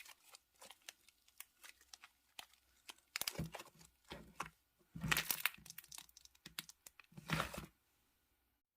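Slime being handled and squeezed: a run of small sticky clicks and pops, then about five louder crackling squishes in the middle, after which the sound stops about eight seconds in.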